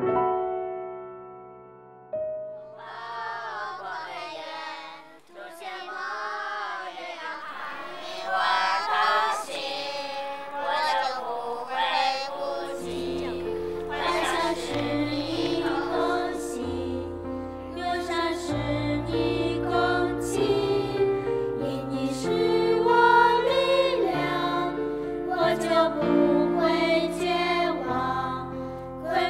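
A slow song: a piano chord fades away, then several voices sing together, at first unaccompanied and from about twelve seconds in over an instrumental accompaniment with a bass line.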